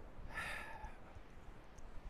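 A short breathy exhale about half a second in, over a low steady rumble of wind and surf.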